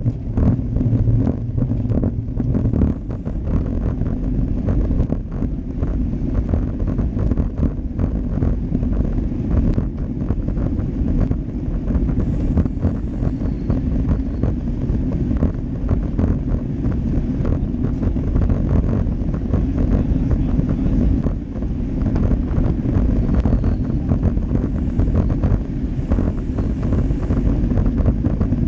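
Steady low wind rumble on the microphone of a GoPro Hero Session mounted on a road bike riding in a bunch, mixed with road and tyre noise and many small knocks and clicks.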